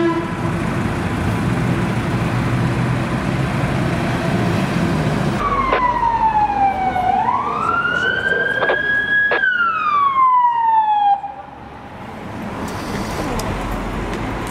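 Steady street and traffic noise, then an emergency vehicle's siren wailing: its pitch falls, climbs, holds high and falls again over about six seconds. It is cut off abruptly, leaving quieter street noise.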